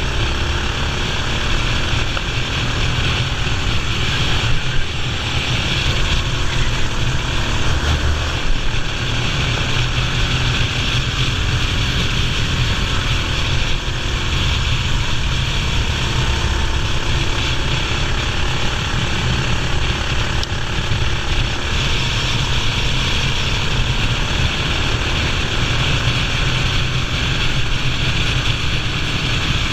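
Racing kart engine running at speed, a loud steady drone with small rises and falls in pitch.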